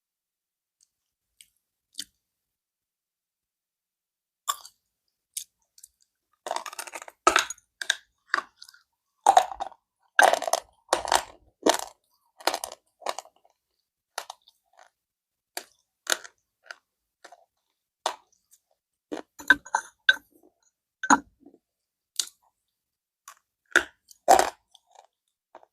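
Slate pencils being bitten and chewed: sharp, irregular crunches that begin about four seconds in, come thickest in the middle and thin out toward the end.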